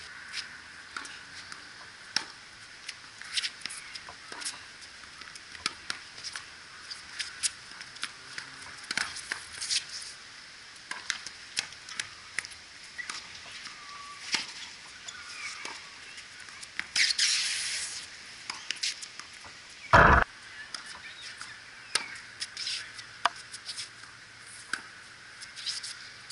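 Tennis balls being struck by rackets and bouncing on a hard court, an irregular scatter of sharp pops. A short burst of hiss comes just before one loud, dull thump about twenty seconds in.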